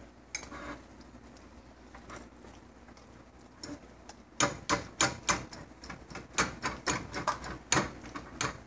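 Sharp, irregular clicks and taps of small kitchen items being handled at an electric stove, several a second from about halfway in, with only a few faint clicks before that.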